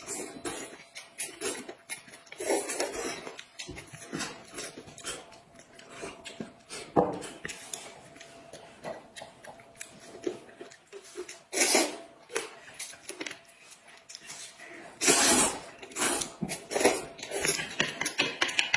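Two people eating noodles at close range: they slurp and chew in many short bursts. A couple of longer, louder slurps come in the second half.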